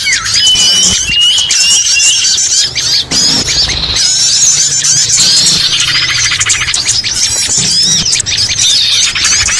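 Lure call for trapping small songbirds: a dense, unbroken chorus of overlapping high chirps, squeaks and trills from several small birds. A held high note sounds in the first couple of seconds, and a fast, evenly pulsed trill runs through the second half.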